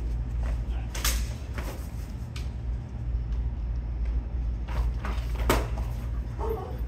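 Steel swords clashing in sparring: a few sharp, separate clacks, one with a short ring, the loudest about five and a half seconds in, over a steady low hum.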